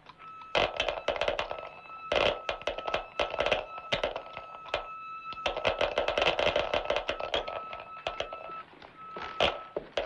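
A homemade mechanical gadget running: irregular runs of rapid clicking and clattering over a steady high electronic tone.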